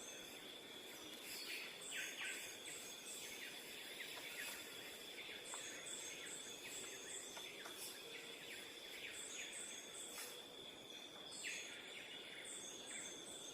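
Faint outdoor ambience with small birds chirping and twittering in short repeated clusters, over a steady high-pitched whine.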